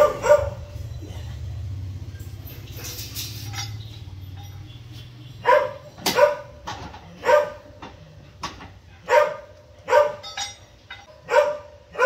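A dog barking repeatedly: one bark at the start, then a run of short, sharp barks, one every half second to second, from about five seconds in.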